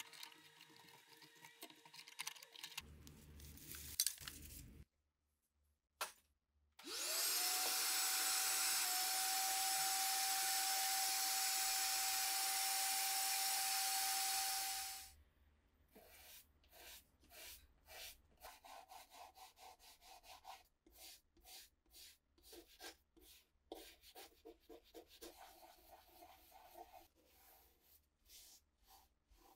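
Rustling as debris is picked out of an old valve radio's chassis. Then a vacuum cleaner starts, its whine rising as it spins up, runs steadily for about eight seconds as the hose sucks dust from the chassis, and cuts off. After it, a cloth scrubs the wooden cabinet in quick rhythmic strokes.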